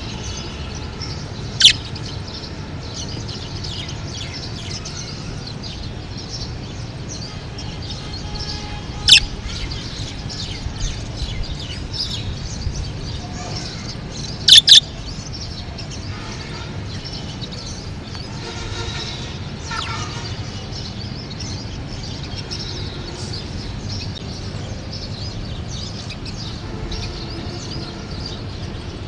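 Budgerigars chattering continuously in quick, high twittering calls, with three much louder sharp calls standing out, the last one a quick double.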